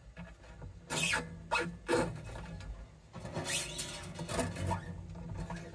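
Steel acoustic guitar string being pulled and wound onto a tuner post by hand, a scraping, rubbing sound in a few short strokes and then a longer stretch.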